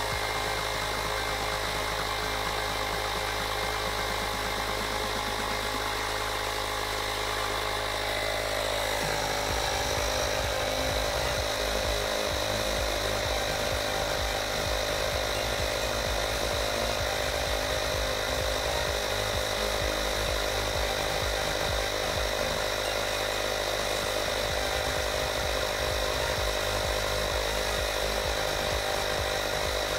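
Woscher 802D portable electric tyre inflator running steadily as it pumps up a car tyre, the pressure climbing from about 17 to 21 PSI. Its tone shifts slightly about nine seconds in.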